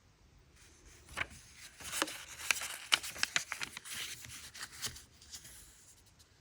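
Packaging and small parts being handled: crinkling and rustling with a rapid run of sharp clicks and taps, starting about half a second in and dying away near the end.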